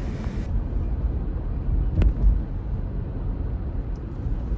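A vehicle driving along a beach, heard from inside the cab: a steady low rumble of engine and tyres on sand, with one short knock about two seconds in.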